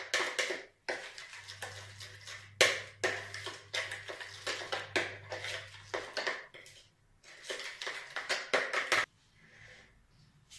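A spoon stirring a thick yogurt marinade in a bowl, with repeated scrapes and clinks against the bowl's sides that stop about nine seconds in.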